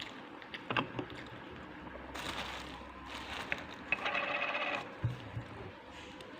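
Eating sounds during a meal of rice and side dishes: a few sharp clicks and light clinks about a second in, scuffling noises after, and a brief ringing tone about four seconds in.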